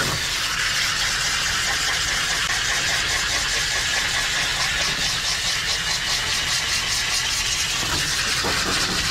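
Water spraying steadily from a hand-held hose nozzle onto a husky's wet, lathered coat and the steel tub, a continuous hiss with a low rumble underneath.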